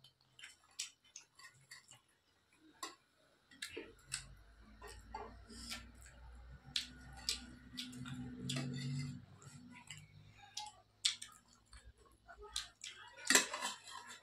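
Eating sounds: scattered short clicks and smacks of chewing, with a spoon clinking against a metal plate, the sharpest clink near the end. A low hum rises in the middle and fades out.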